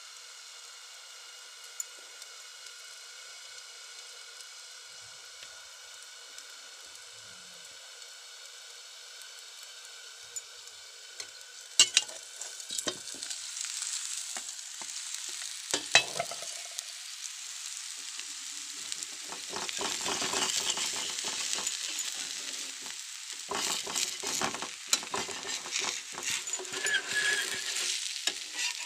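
Chakuli pitha, a thin rice-batter pancake, sizzling on a hot pan. A faint steady hiss gives way, after a few sharp clicks of a utensil on the pan about twelve seconds in, to louder, uneven crackling sizzle with many small clicks.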